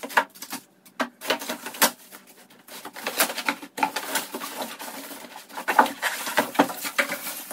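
Polystyrene foam packing inserts squeaking and scraping against a cardboard box, with irregular rustling of foam sheet and plastic wrapping as an appliance is unpacked by hand.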